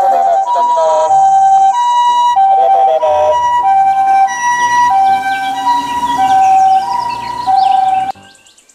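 Japanese ambulance siren sounding its two-tone alternating call, a lower and a higher note taking turns evenly. It cuts off suddenly about eight seconds in.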